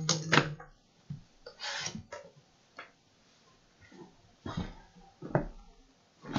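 A cardboard shipping case of trading-card hobby boxes being opened and handled: irregular scrapes, rustles and sharp knocks of cardboard, loudest just at the start and again near the end.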